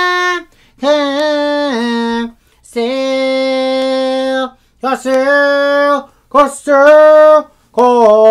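A man singing a cappella in a high voice: a string of long held notes broken by short pauses, with no instruments.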